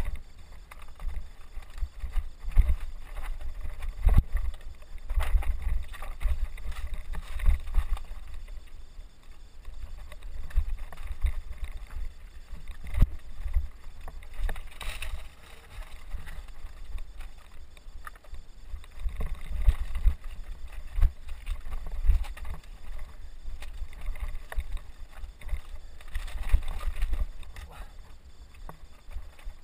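Mountain bike ridden slowly over loose scree and rock steps: irregular deep thumps and rumble from the bike and camera jolting, with sharp knocks and rattles of tyres and frame striking rock and gravel.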